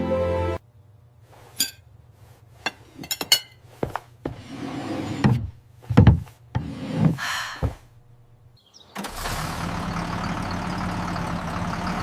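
A series of sharp knocks and clicks with a few short whooshing sounds, then a steady rumbling noise that starts about nine seconds in.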